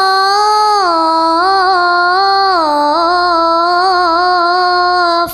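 Female voices singing an Islamic sholawat a cappella. They hold one long ornamented vowel that drops in pitch in two steps, about a second in and near the middle, and break off at the end.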